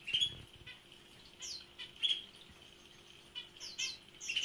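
Small pet cage birds, finches and canaries, giving short high chirps on and off, several of them quick downward-sliding notes.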